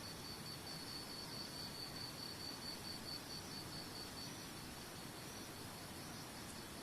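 Steady rush of a waterfall, with a high, even trill over it pulsing several times a second that stops about four seconds in.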